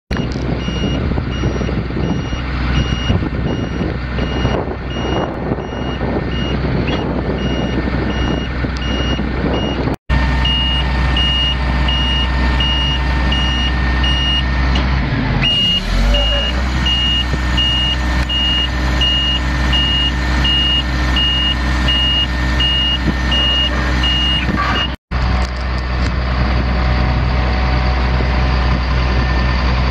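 A heavy truck's Caterpillar 3126 inline-six turbo diesel runs steadily while a backup alarm beeps, one high tone about twice a second.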